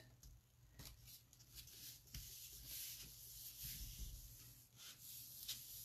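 Faint rustle of a paper card being slid and pressed on a cutting mat, with a few soft clicks.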